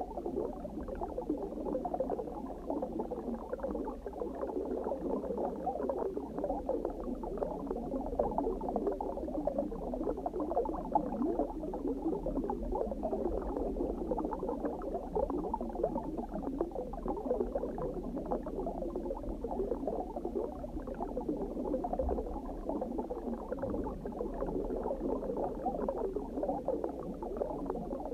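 Underwater ambience: steady, dense bubbling over a low rumble, without change.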